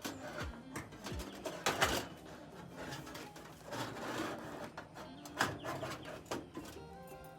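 Metal clanks and clicks of a folding Coleman camp oven's panels and latches being handled and set up, in separate knocks with the loudest cluster about two seconds in. Birds coo in the background.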